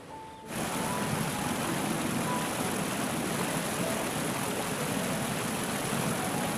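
Rushing water of a small rocky stream pouring down a short cascade, cutting in suddenly about half a second in and staying loud and steady. Soft background music goes on faintly underneath.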